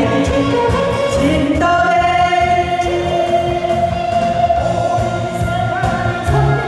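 A man and a woman singing a Korean trot duet into microphones over an amplified backing track with a steady beat. A long note is held from about a second and a half in until near the end.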